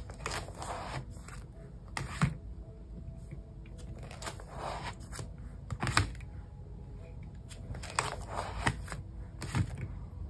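Plastic pocket pages of a photocard binder being turned and handled: crinkling rustles broken by several sharp clicks and taps.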